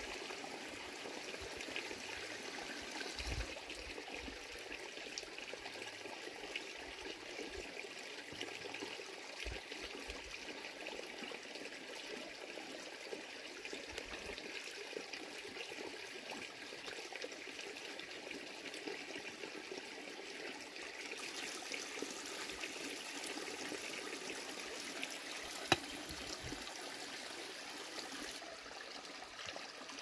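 Steady rush of running water, with faint scattered ticks and one sharper click near the end.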